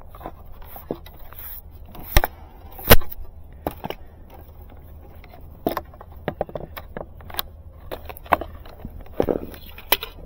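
Clicks and knocks from handling a plastic dome fiber splice closure and working drop cable into its base, irregular and scattered, with two louder knocks about two and three seconds in.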